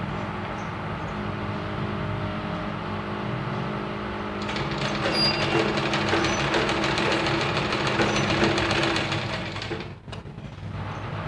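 Black straight-stitch sewing machine running, its needle stitching steadily through fabric. It grows louder about four and a half seconds in, stops briefly near the end, then starts again.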